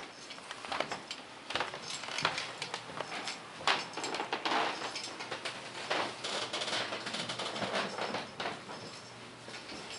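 Footsteps and rustling as the camera is carried through the rooms: irregular soft knocks and scuffs, no steady beat.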